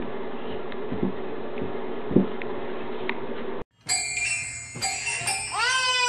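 A few dull thumps about a second apart over a steady hum, as a baby kicks its feet against a tiled wall. After a sudden cut, tinkling toy piano notes, then a small child's long sung 'aah' rising into a held note near the end.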